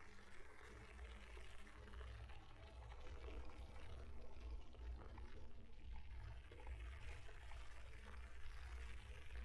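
Faint rushing rumble of riding an electric mountain bike: wind on the frame-mounted camera's microphone and tyres rolling, with a faint steady hum under it.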